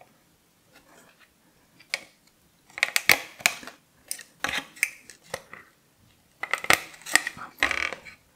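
Aluminium CPU heatsink being pressed back onto a Synology DS415+ motherboard by hand, its push-pin clips snapped in: small clicks, taps and scrapes in several bursts with short pauses between.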